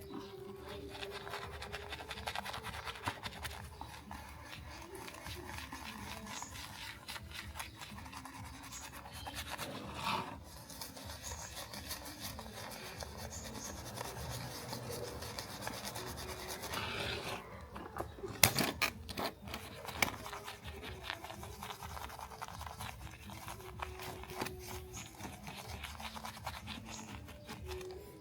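Continuous scraping and rubbing of hand work on the surface of a small toy car, made of many fine strokes. A few sharp knocks come about two thirds of the way through.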